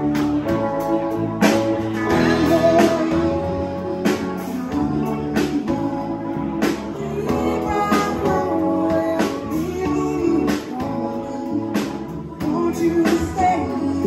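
A live band playing: a man singing over electric guitar, keyboard and a drum kit, with a steady beat of drum hits.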